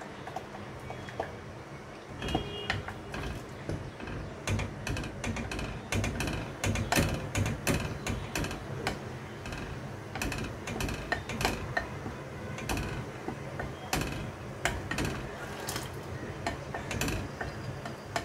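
A spoon stirring milk and custard mixture in a saucepan, knocking and scraping against the pan in irregular clicks as it is kept moving while the custard heats.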